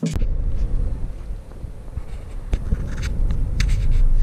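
Car driving on a gravel road, heard from inside the cabin: a steady low road rumble with scattered small ticks and clicks.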